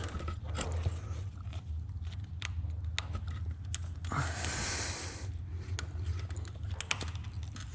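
Small plastic electrical connector clips on a CRF110's throttle body being pried and unclipped by hand: scattered small clicks and scraping, with a longer rustling hiss about four seconds in.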